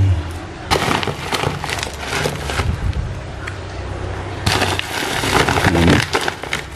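Woven plastic feed sack of koi pellets crinkling and rustling as it is handled and turned, in two bouts of crackling with a quieter lull between them.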